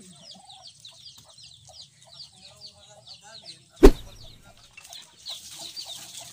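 Farmyard chickens clucking, over a steady run of rapid, high, falling chirps. A single sharp knock a little past halfway is the loudest sound.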